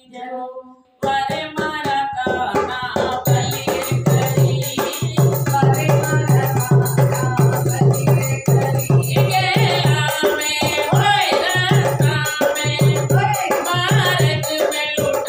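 A woman singing a Krishna bhajan in devotional folk style, with drum and jingling percussion coming in about a second in and keeping a steady beat under her voice.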